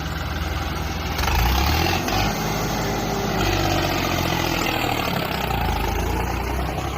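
Tractor diesel engine running. About a second in it picks up revs, then holds steady.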